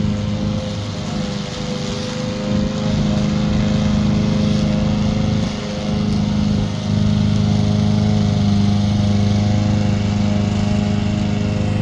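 Homemade remote-controlled zero-turn lawn mower running steadily while mowing, its sound dipping briefly about two seconds in and again about six seconds in.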